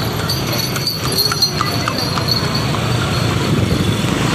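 Hooves of a horse pulling a carriage clopping on asphalt, a run of clops in the first half, over steady street traffic with motorbikes.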